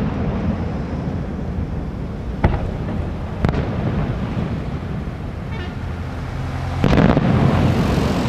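Fireworks shells bursting over the sea: two sharp bangs about two and a half and three and a half seconds in, then a louder, longer burst near the end, over a steady low rumble.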